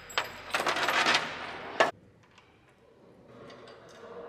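Clattering and rustling of the ultralight's airframe being handled during assembly, with sharp clicks. It ends in a hard knock about two seconds in and then drops to a few faint ticks.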